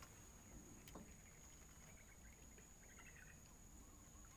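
Faint, steady, high-pitched insect drone, one unbroken whine over near-silent riverside quiet, with a faint click about a second in.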